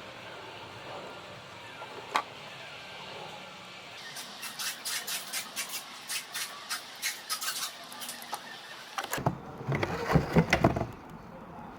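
Parts of a dismantled starter motor being worked by hand during greasing: a run of quick scraping strokes, then a louder burst of knocking and clattering about nine seconds in.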